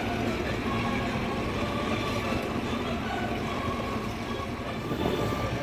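Inboard engine of a classic wooden runabout idling steadily as the boat eases away from the dock; a bystander says it doesn't sound good.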